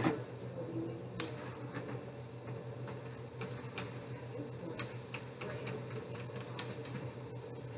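A wooden spoon stirring vegetables in a skillet, knocking and scraping against the pan in irregular clicks, the sharpest near the start and about a second in, over a steady low hum.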